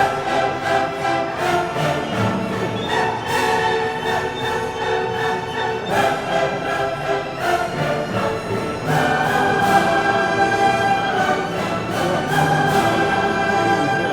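Orchestral music with long held notes.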